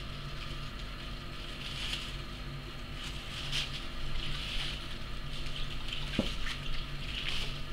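Cranberry juice pouring into a thin plastic glove, trickling in soft uneven swells as the fingers fill.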